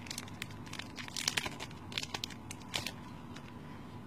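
Foil Pokémon trading-card booster pack crinkling and tearing open, with clusters of sharp crackles about a second in and again near three seconds.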